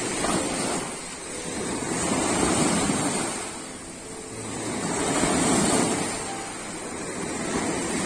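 Small surf waves breaking and washing up a sandy beach, the rush of water swelling and fading about every three seconds.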